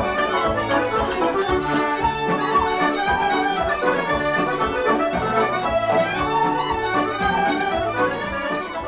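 Instrumental Irish traditional tune playing out the programme, beginning to fade near the end.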